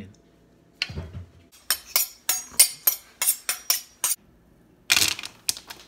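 Knife chopping an onion on a plastic cutting board: a thud about a second in, then a quick run of about a dozen sharp knife strikes over two seconds, and a few more strikes near the end.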